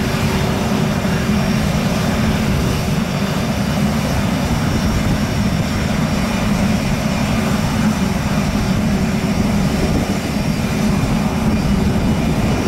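Cirrus SF50 Vision Jet's single Williams FJ33 turbofan running at taxi power: a steady rumble with faint high steady tones over it.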